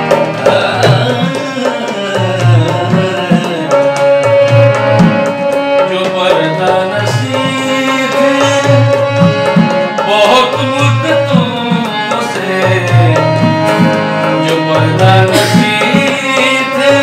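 Harmonium playing a ghazal melody with long held notes, over a steady hand-drum beat. A man's voice sings short phrases in places.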